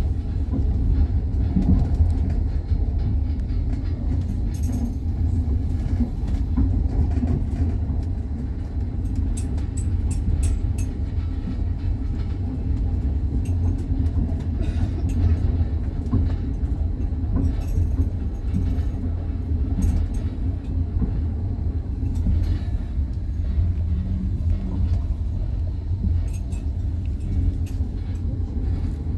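Train wheels running on the rails, heard from aboard the train: a steady low rumble with scattered clacks of the wheels over the rail joints.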